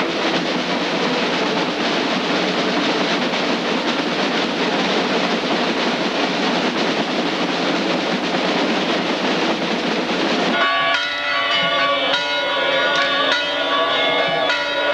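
Church bells pealing, many overlapping strikes ringing together. For the first ten seconds or so they sit under a dense, steady din, which cuts out suddenly and leaves the bells clear.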